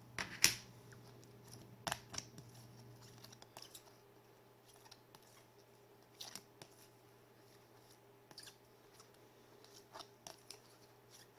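Hockey trading cards being handled and set down one after another: scattered light clicks and slides of card stock, the sharpest about half a second in.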